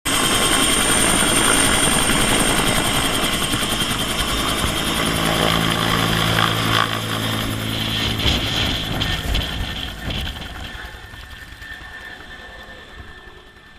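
Helicopter lifting off from close by, its turbine and rotor noise loud and steady, then fading over the last few seconds as it flies away.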